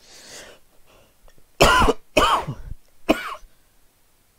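A person coughing three times in quick succession, starting about a second and a half in.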